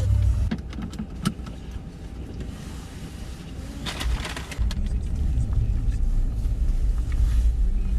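Steady low road and engine rumble of a pickup truck driving on the highway, heard from inside the cab. The rumble eases for a few seconds and then comes back. There are a few sharp clicks about a second in, and a short hiss about four seconds in.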